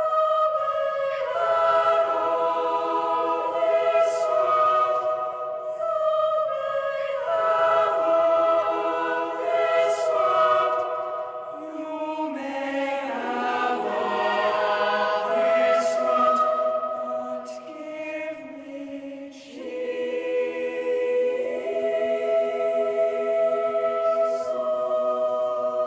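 Choir singing a slow piece in long held chords that change every couple of seconds.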